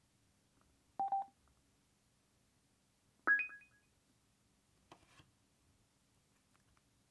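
Electronic confirmation beeps of a Bluetooth pairing: a short double beep about a second in, then a click and a higher two-note chime a little after three seconds, signalling that the connection is made.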